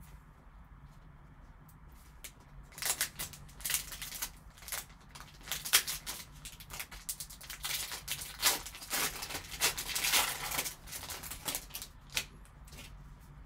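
Trading-card pack wrapper crinkling and tearing as it is opened by hand: a dense run of sharp crackles starting about three seconds in and thinning out near the end.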